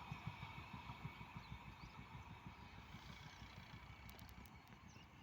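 Engine running with a fast, even low throb that slowly fades away.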